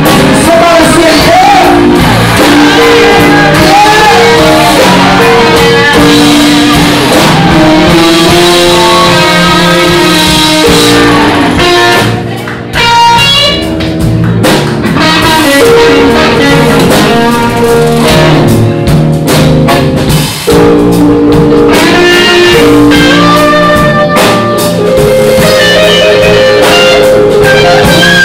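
Live blues band with electric guitar and drums playing a slow minor-key blues. The recording is overloaded and distorted because the recorder's mic gain was set too high.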